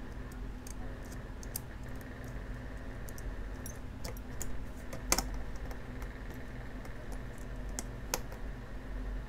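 Small scattered clicks and taps of metal tweezers handling a smartphone board and its plastic housing, with a sharper click about 5 s in and another about 8 s in, over a steady low hum.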